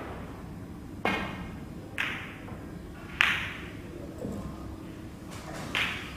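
Snooker cue and balls clicking as a shot is played: a run of sharp clacks about a second apart, each ringing briefly. The loudest comes about three seconds in and a softer one near the end.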